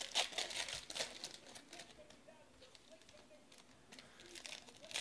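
Foil wrappers of trading-card packs crinkling as the packs are torn open and the cards handled. There are two spells of crinkling, one in the first second or so and another about four seconds in.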